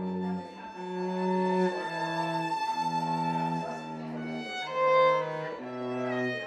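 Slow music for bowed strings, with a violin-like melody over a lower cello-like line. The notes are held and change about once a second.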